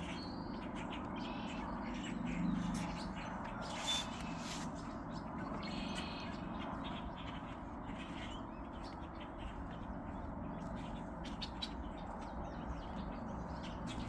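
Red-winged blackbirds calling: many scattered short chips and a couple of longer trilled calls over a steady low hiss.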